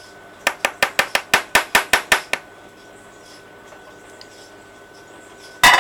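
A spoon knocking rapidly against a metal mixing bowl as thick cookie dough is stirred: about fifteen quick taps over two seconds, then one louder knock near the end.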